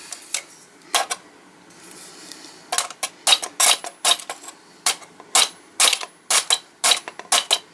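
Sharp, irregular metallic clicks and taps of tinplate toy-tank parts being worked by hand, a few at first and then a quick string of them from about two and a half seconds in.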